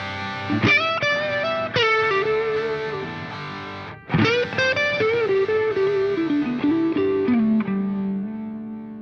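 Background music: an electric guitar with distortion playing a melodic phrase of bent notes, ending on a held note that fades out.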